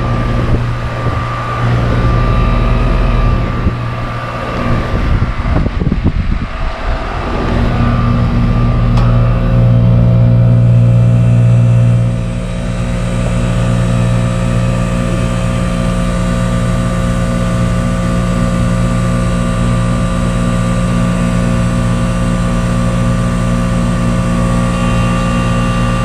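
Goodman central air-conditioner condensing unit running, with a steady electrical hum from the compressor under the whir of the condenser fan. The first seven seconds are rougher and uneven before it settles into a steady drone, slightly quieter from about twelve seconds in.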